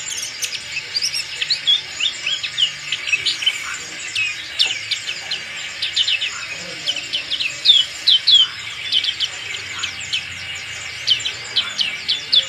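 Black-capped white-eye singing a fast, unbroken twittering song of short high notes, many of them sliding down in pitch.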